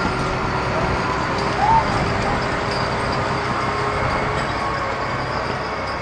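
Large wheel loader's diesel engine running steadily as it moves off, fading slightly toward the end, with a brief squeak about two seconds in.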